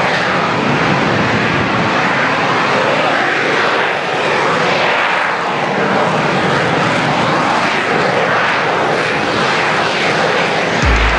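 Loud, steady jet noise from a low, slow-flying AV-8B Harrier jump jet, its pitch slowly shifting as it moves.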